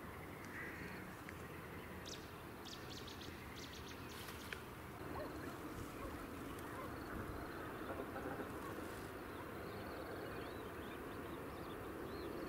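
Quiet outdoor ambience with a faint steady background and birds calling now and then, in short chattering bursts.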